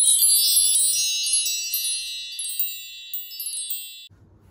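Chime sound effect for a video transition: many high, bright chime tones struck in a quick shimmer, fading over about four seconds, then cutting off suddenly.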